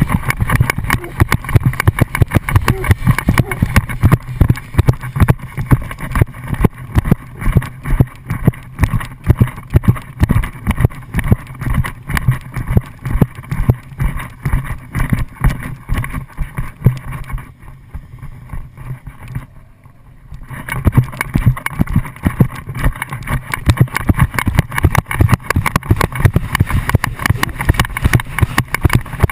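Rapid, rhythmic thumping and rattling of a dog-mounted action camera jolting with a Rhodesian ridgeback's running strides, over wind on the microphone and a sport motorcycle's engine. The thumping falls away for about three seconds past the middle, then starts again.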